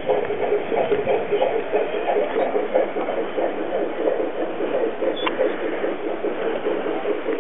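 Garden-railway model diesel locomotive hauling tank wagons, running with a steady, rapid throbbing hum.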